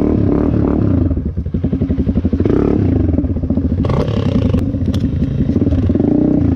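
Dirt bike engine running at low revs, the revs rising and falling unevenly. A few sharp cracks about four to five seconds in as branches snap and scrape against the bike.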